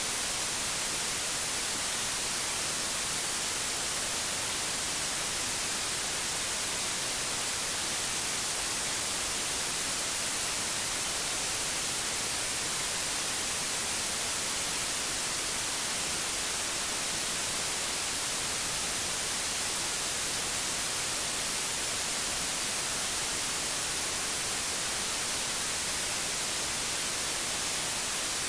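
Steady white noise: an even hiss, strongest in the high end.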